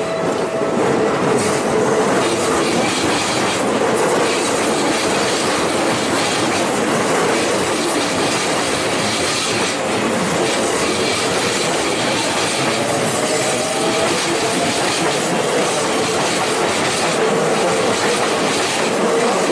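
Keikyu Line train passing at close range: a steady, loud rumble of wheels running on the rails, with a few brief clacks.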